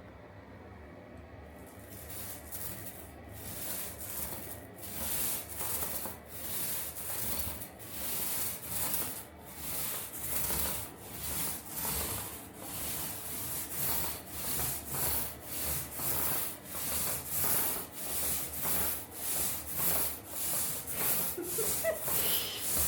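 Hand sanding of dried wall filler with sandpaper, in regular back-and-forth rubbing strokes that start about two seconds in and quicken to about two per second.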